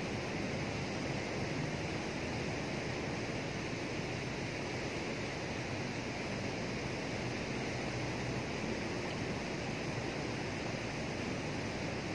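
Fast-flowing water rushing through a sluice gate channel: a steady, even rush with no breaks.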